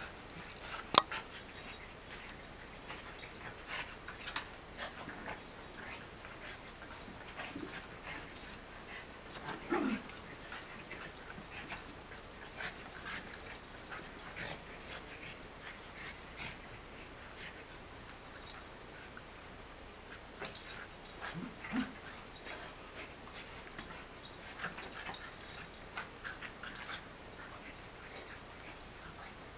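A dachshund and a French bulldog play-wrestling: steady scuffling with a few brief whimpers, the clearest about ten seconds in and again near twenty-two seconds.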